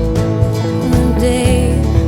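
Studio band recording in a country-tinged pop style: drums and bass keep a steady beat under electric and acoustic guitars and keyboards.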